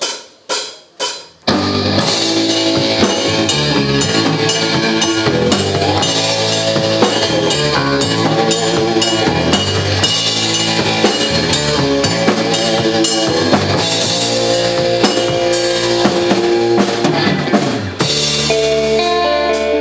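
Instrumental passage of a rock song played by a band with drum kit, bass and electric guitar. Three separate drum hits lead in, then the whole band plays together with a steady beat. The sound thins out and changes at about 18 s.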